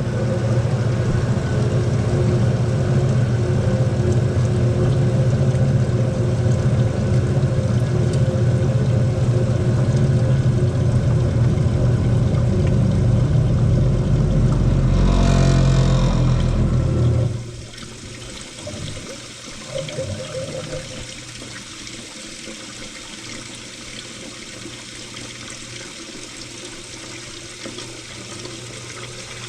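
Kitchen garbage disposal motor running steadily with a low hum and a sink of water draining through it, now spinning freely after being un-jammed. About 15 seconds in there is a brief rush of water, and about 17 seconds in the motor cuts off suddenly, leaving quieter draining water.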